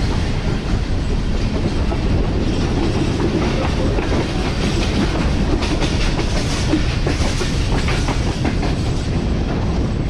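Passenger train heard from aboard a moving coach: a steady rumble of wheels on the track, with wheel clicks over the rail joints that are plainest around the middle.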